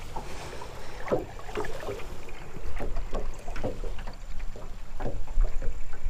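Small waves lapping against the hull of a small aluminium fishing boat, with wind on the microphone and scattered light knocks and clicks.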